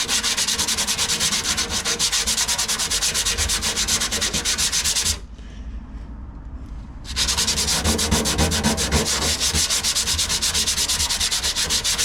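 Sandpaper rubbed by hand in rapid back-and-forth strokes over a car's fuel tank, with a pause of about two seconds midway. The surface around the pinholes is being cleaned and roughed up so the repair putty will stick.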